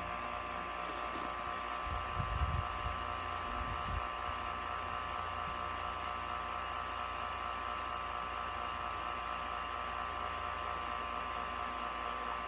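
A 1 hp Grundfos electric water pump humming steadily with the hose closed, running on as it builds pressure toward its roughly 60 psi cut-off. A few low bumps come about two to four seconds in.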